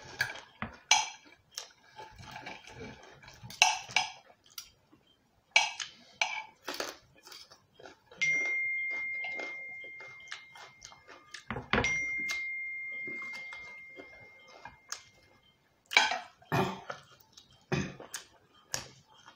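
Knife and fork clinking and scraping on ceramic plates during a meal, with many short clicks and clinks. Twice, about eight and twelve seconds in, a clear high ringing note sounds and fades away over three or four seconds, the second one just after a sharp knock.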